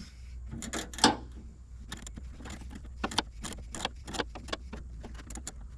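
Irregular light metallic clicks and scrapes of a T15 Torx driver turning out a camera mounting screw a little at a time in a cramped space, with one sharper click about a second in.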